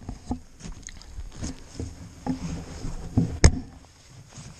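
Camo clothing and gear rustling and scraping close to the microphone as a hunter shifts position, with scattered light knocks and one sharp click about three and a half seconds in.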